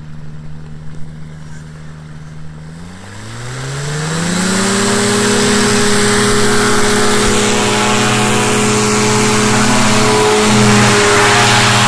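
Aerochute powered-parachute trike's engine and pusher propeller idling, then throttled up about three seconds in, its pitch rising over a couple of seconds to a loud, steady full-power run for the takeoff roll as the wing inflates.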